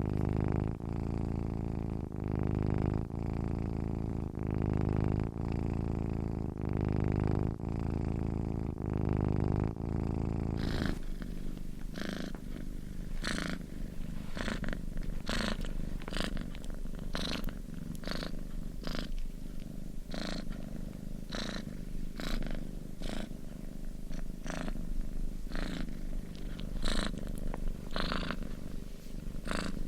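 Domestic cat purring, a deep purr that swells and fades with each breath about once a second. About a third of the way in the sound changes abruptly: the purr becomes softer and each breath carries a brief airy hiss.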